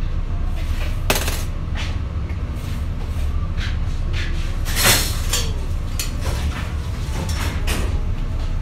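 Spoon and utensils clinking and knocking against plates and a glass jar over a steady low hum. There is a sharp knock about a second in and a louder clatter about halfway through.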